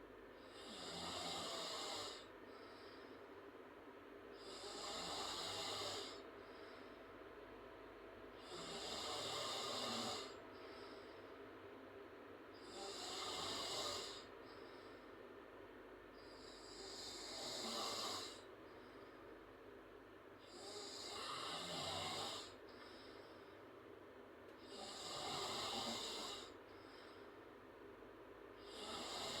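A girl snoring through an open mouth. Breathy snores of about a second and a half each come at a steady pace of one every four seconds or so.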